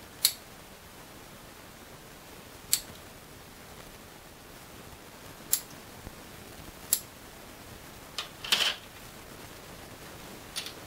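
Small plastic spacer pieces being snipped free of an ESU speaker-baffle sprue: about six sharp, separate snips one to three seconds apart, with a longer crackle of plastic about two-thirds of the way in.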